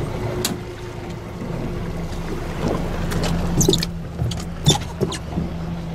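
Boat engine idling with a steady low hum, with a few short sharp clicks and knocks from about three and a half to five seconds in.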